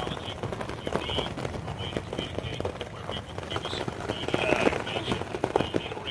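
Rain pattering on a tent in many irregular drops, with short high chirps repeating in the background.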